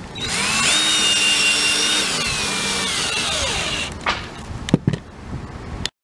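Cordless drill driving a screw through a solar-panel mount foot into the trailer roof. Its motor whine spins up quickly, holds steady, then slows and falls away over about two seconds as the screw seats. A few light clicks follow.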